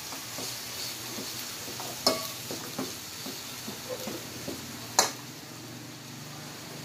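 Ground pork sizzling as it fries in an aluminium pot, with a metal spatula stirring and scraping through it. The spatula knocks sharply on the pot twice, about two seconds in and, loudest, near five seconds.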